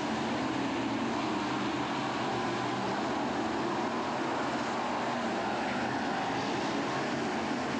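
Several BriSCA F1 stock cars' V8 engines running hard around the oval, giving an unbroken, steady drone of a racing pack.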